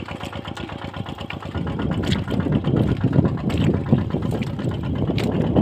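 Small engine of a field water pump running steadily with a rapid, even beat; from about a second and a half in, a louder, rougher low rushing noise joins it.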